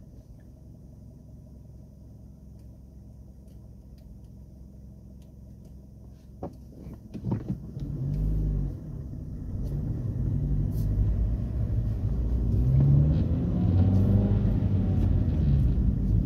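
Car engine heard from inside the cabin: idling quietly while the car waits, a few clicks, then from about eight seconds in the car pulls away and the engine rises and falls in pitch as it accelerates through the gears with a low rumble.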